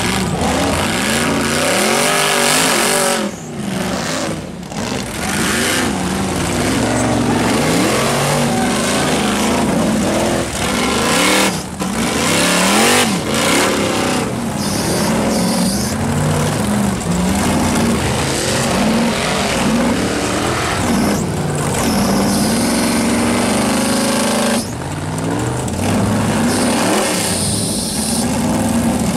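Engines of several tube-frame racing buggies revving hard and unevenly, rising and falling in pitch and overlapping, as they claw up a rocky dirt hill. The revs drop off briefly a few seconds in and again near the end.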